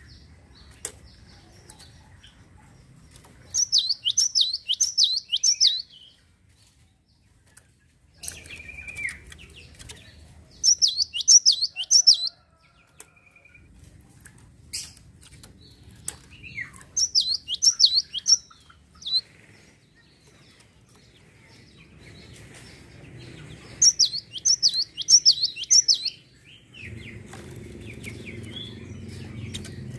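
Gelatik songbird singing in four short bursts, each a quick run of five or six sharp, high, down-slurred notes, with pauses of several seconds between them. A faint low background rumble grows a little louder near the end.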